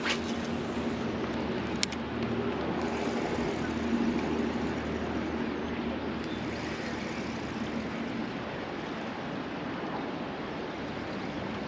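Steady wind and water noise around a kayak, with a faint low steady hum in the first half and a single sharp click about two seconds in.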